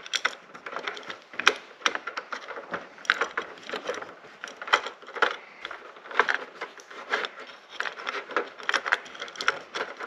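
Irregular small clicks, clinks and rattles of a metal bead pull chain and a plastic LED light end cap being handled, as the chain is fished back through the hole in the cap.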